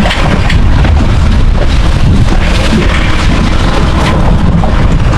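Loud, steady rumbling noise of wind buffeting the microphone on an offshore fishing boat, strongest in the low end, with water and boat noise under it.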